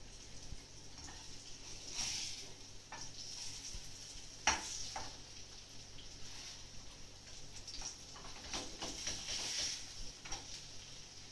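Grated potato pancakes frying in oil in a pan, with a steady sizzle, and a metal utensil clicking and scraping against the pan as they are pressed and turned. One louder knock comes a little before halfway.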